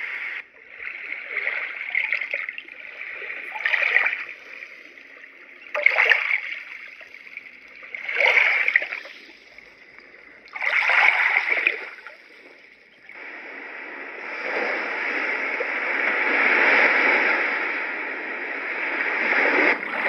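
Roffie N600 white-noise machine playing a water soundscape through its speaker: a run of splashing swells about every two seconds, then from about thirteen seconds in a steadier rushing wash that slowly rises and falls.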